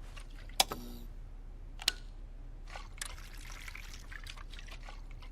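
Wall light switches being flipped: two sharp clicks about a second and a half apart, then a fainter click about three seconds in, over a low steady hiss.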